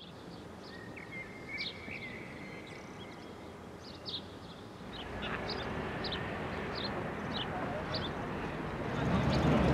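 Outdoor street ambience: small birds chirping repeatedly, about twice a second, over a steady background hum. The background noise grows louder about halfway through and louder again near the end.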